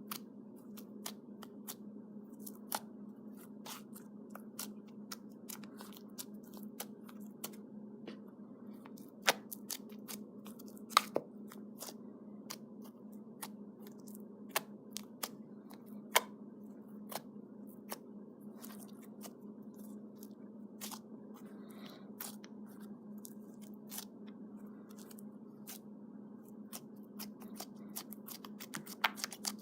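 Slime being squeezed and worked by hand, giving irregular sharp clicks and crackles with a few louder snaps, over a steady low hum.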